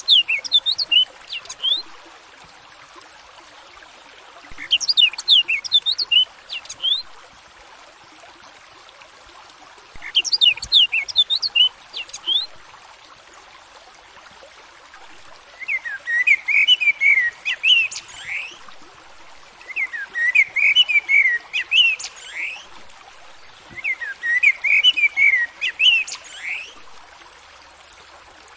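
Songbird singing short phrases of quick whistled notes about every four to five seconds: three higher phrases, then three lower, more jumbled ones. A steady hiss runs underneath.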